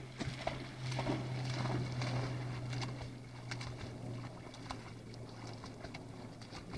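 A dog splashing through shallow lake water, bounding and then swimming, heard as a run of light splashes and patters. A steady low hum runs underneath and fades out near the end.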